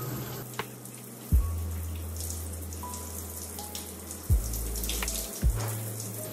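Shower spray from an overhead rain showerhead hissing steadily onto hair and tile. A soft music bed with low bass notes and a few low thumps runs underneath.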